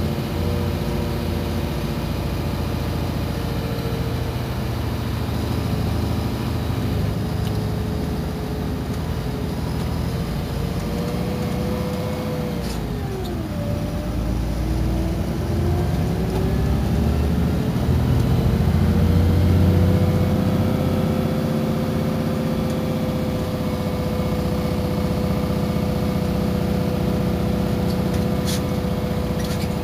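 Iveco Crossway bus under way, its engine and drivetrain running with a low rumble and a whine. The whine falls sharply in pitch about 13 seconds in, then rises slowly back and holds steady.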